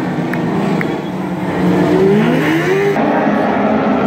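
A pack of motorcycle-engined dwarf race cars running together on a dirt track, several engines overlapping, with engines rising in pitch as they accelerate about two seconds in.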